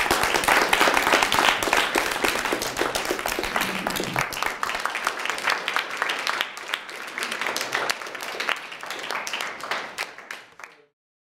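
Audience applauding, a dense patter of many hands clapping that thins a little and then cuts off abruptly near the end.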